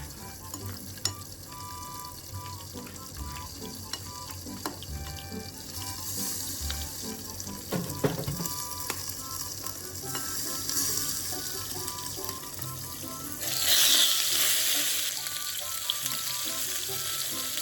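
Stuffed eggplant slices frying in oil in a pan, sizzling steadily. The sizzle grows fuller about six seconds in and swells sharply for a moment about three-quarters of the way through, with a few light clicks along the way.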